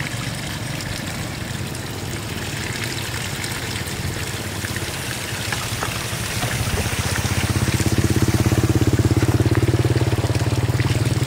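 A small engine running with a fast, even pulse, getting louder about two-thirds of the way through, over water trickling and splashing.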